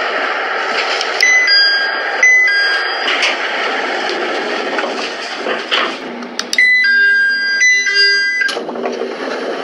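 Door chime of a JR East local train: a falling two-note electronic chime played twice in quick succession about a second in, and again about six and a half seconds in. Steady train noise runs underneath.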